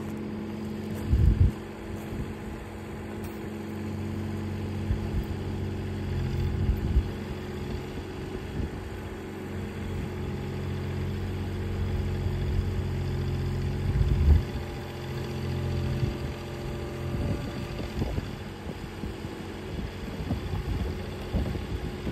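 Mini excavator's diesel engine running steadily, with gusts of wind buffeting the microphone about a second in and again about fourteen seconds in.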